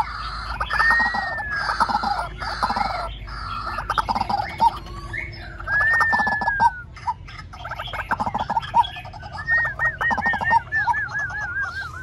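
White-breasted waterhen calling: fast runs of short, repeated arching notes. A long arching call comes about a second in and another about six seconds in, and a quick run of short arching notes near the end.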